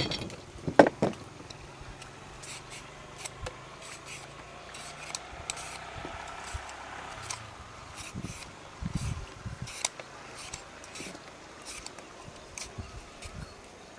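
Raw green mango being shredded into strips with a handheld julienne shredder: a run of faint, irregular scraping strokes. A sharp knock of a knife on the wooden cutting board comes right at the start.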